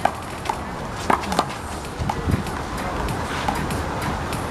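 Sharp slaps of a rubber one-wall handball being struck by hand and hitting the wall during a rally, several impacts a fraction of a second to a second apart, over steady outdoor background noise.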